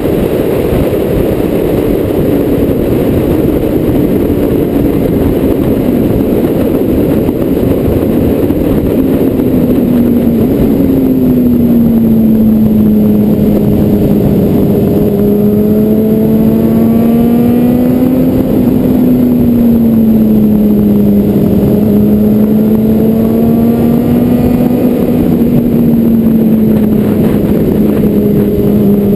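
Car driving at highway speed: a steady engine drone over road and wind noise, its pitch drifting gently up and down and easing lower about ten seconds in.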